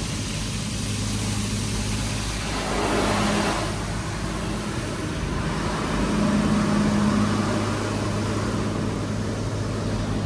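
A car driving: steady engine and road noise with a low hum, swelling a little a few seconds in and again around the middle.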